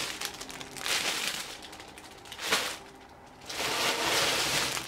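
Plastic bags crinkling in several bursts as bundles of braiding hair are pulled out of their packaging.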